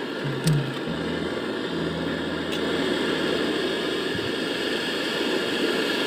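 Portable butane gas torch lit with a lighter, catching with a sudden pop about half a second in, then its flame burning with a steady hiss as it heats the refrigerator's copper charging tube for brazing shut.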